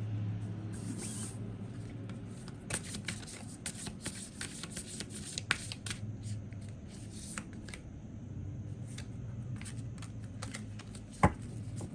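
A deck of tarot cards being shuffled by hand: an irregular run of light card snaps and slides, with one sharper tap near the end, over a low steady hum.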